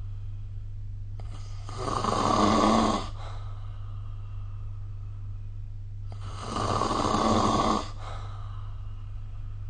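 A person snoring: two long, rasping snores about four and a half seconds apart, over a steady low hum.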